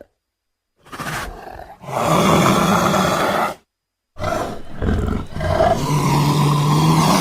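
Black leopard (black panther) roaring twice: two long, loud roars of about three seconds each, separated by a silent gap. The first starts quieter and swells about a second in.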